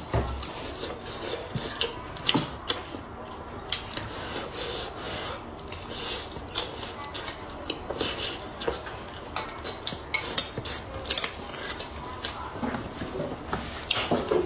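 Eating sounds: chopsticks clicking and scraping against a ceramic bowl in irregular taps, with close-miked chewing of rice and coated pork in between.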